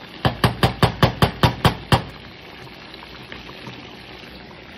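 Metal ladle knocked rapidly against the rim of a saucepan of black beans, about nine sharp taps in under two seconds, then a steady background hiss.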